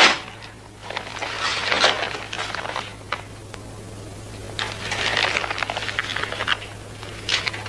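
Paper envelope being torn open and handled, in several bursts of rustling and crinkling, over a steady low hum.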